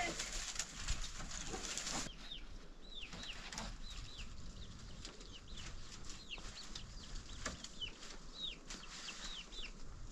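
Birds chirping: short high calls, each sliding down in pitch, repeated about once or twice a second. A rustling noise with clicks stops abruptly about two seconds in.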